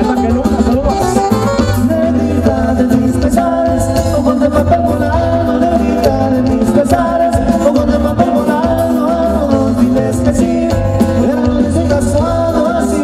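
Live regional Mexican band playing a dance number, a lead singer singing over a steady bass line and drums.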